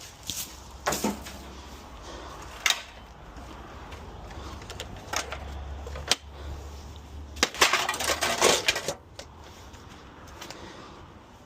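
Scattered knocks and metallic clanks of scrap and debris being picked through and moved, with a denser run of clatter about eight seconds in. A low steady hum sits underneath for the first several seconds.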